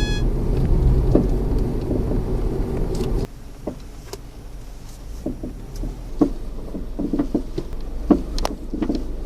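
Irregular light knocks (kotokoto) from a car's suspension, a few at a time, which began after the shock absorbers were replaced. A steady drone stops suddenly about three seconds in, and the knocks come through more clearly after it.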